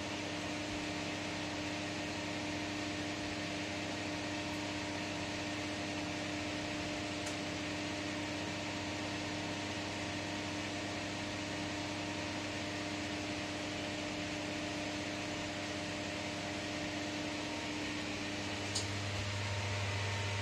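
Steady hum and hiss of a fan running inside an enclosed Ferris wheel cabin, which has air conditioning and heating. Near the end the hum drops to a lower note and a single click sounds.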